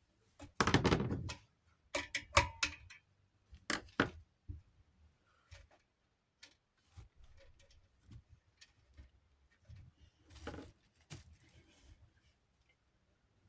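Irregular clicks, knocks and clatter of ceiling-fan parts and tools being handled and set down, loudest about a second in, with sharp clicks a few seconds later and another knock near the end.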